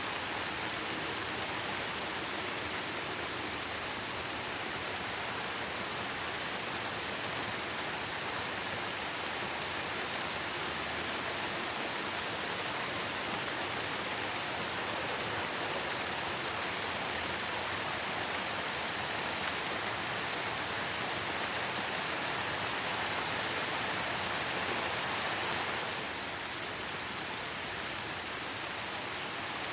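Steady rain falling as an even hiss, dipping slightly in level near the end.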